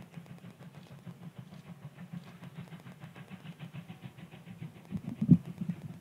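Distant steam locomotive hauling a passenger train, its exhaust chuffing in a rapid, even beat. About five seconds in there is one louder thump.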